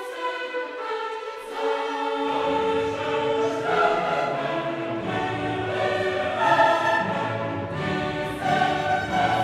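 Background music: a choir singing sustained chords over orchestral accompaniment, with lower parts coming in about two seconds in.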